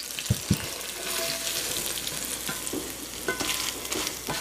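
Hot oil sizzling in a #12 cast iron skillet while a metal spatula scrapes fried okra and squash in cornmeal out across the pan, with two sharp knocks of the spatula near the start.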